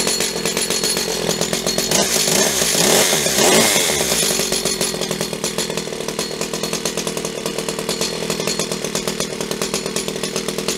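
Stihl 015L's small two-stroke chainsaw engine running with a rapid, even beat. It rises in speed and falls back once between about two and four seconds in, then holds a steady speed. It runs cleanly with its ignition points just cleaned and gapped at 15 thou.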